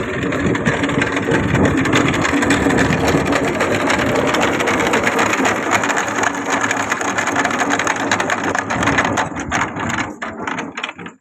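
Engine of a grandong, a homemade rural utility vehicle, running with a rapid even chugging beat and a mechanical rattle. Near the end the beats spread out and the sound dies away.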